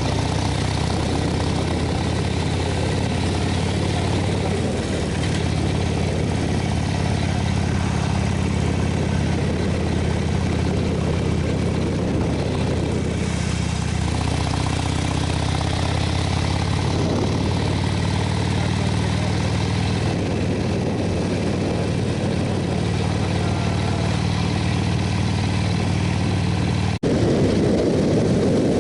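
Motorcycle engine running at a steady, unchanging speed. Near the end it cuts out for a moment and comes back louder and rougher.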